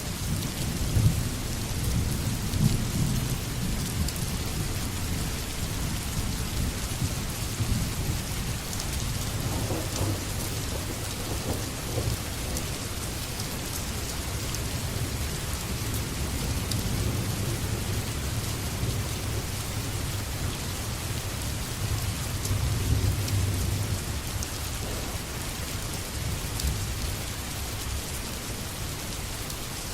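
Steady rain falling, with a low thunder rumble that swells and fades several times.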